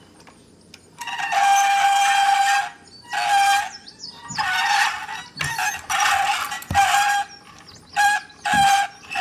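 Battery-powered Thomas and Friends toy train playing its sound effect through a small speaker: a long pitched, hissy blast about a second in, then several shorter ones. The owner takes the weak sound for a sign that the battery needs changing.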